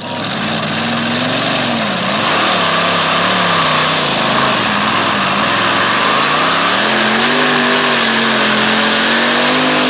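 V8 engine of a pulling pick-up running loud at high revs, its pitch rising and falling as the revs swing.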